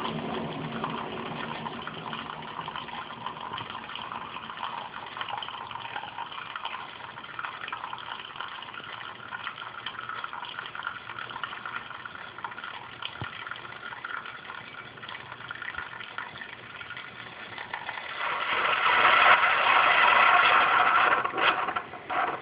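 Keurig coffee maker brewing a K-cup: its pump running and coffee pouring into the cup. The sound grows louder about eighteen seconds in, then cuts off near the end with a few clicks as the brew finishes.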